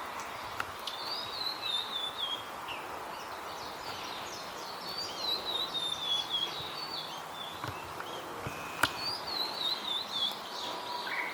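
A songbird singing three descending warbled phrases a few seconds apart, over a steady background hiss. A single sharp click about three-quarters of the way in.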